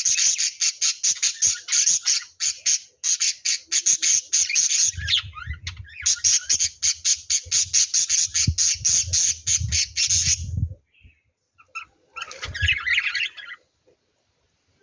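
Lovebirds chirping in a fast, steady string of sharp calls, about five a second, with a low rumble underneath from about halfway. The chirping breaks off about two-thirds of the way in, and a short burst of chatter follows a second or so later.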